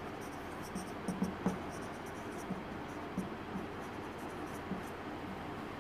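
Marker pen writing on a whiteboard: short, irregular strokes and taps of the felt tip, with a few louder ones about a second in.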